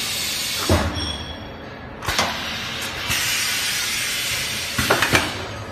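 Pneumatic forming press of a baking-paper liner machine cycling: two long hisses of compressed air, with sharp metallic knocks about a second in, at the start of the second hiss, and as it stops near the end.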